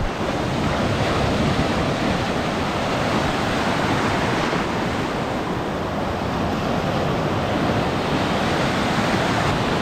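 Small ocean surf breaking and foaming in the shallows, a steady rush of water.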